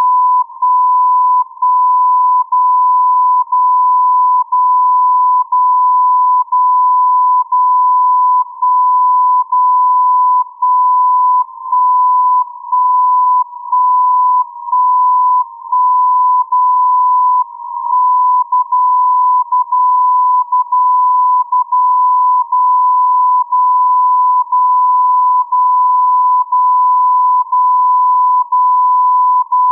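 MSF 60 kHz time signal from Anthorn, received in CW mode on a software-defined receiver and heard as a steady beep near 1 kHz. The beep drops out briefly once a second, and some gaps are longer or doubled: the on/off carrier keying that carries the time code.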